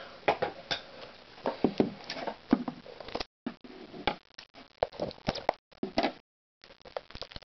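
A trading card box being handled and opened: irregular crinkling, rustling and small clicks of cardboard and wrapping. The sound drops out to silence twice, briefly.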